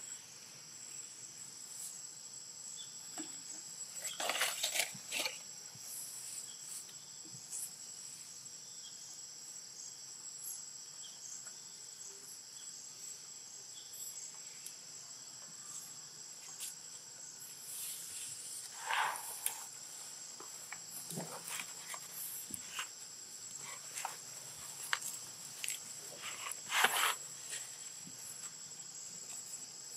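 Steady high-pitched drone of an insect chorus with a thin constant whine on top. A few short louder sounds stand out, about four seconds in, near two-thirds through, and loudest near the end.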